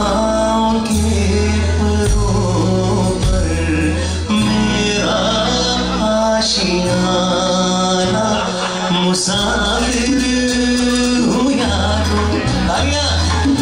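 A live pop band playing: a man sings into a microphone over drum kit, keyboard and electric guitar, with a steady bass line underneath.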